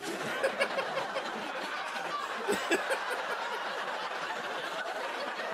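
Studio audience laughing, a steady wash of laughter with a few louder peaks, and a man laughing close to the microphone.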